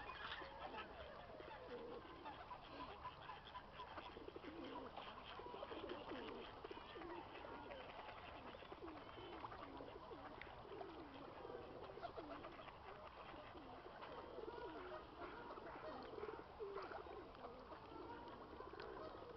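Birds calling, many short low calls overlapping with no break.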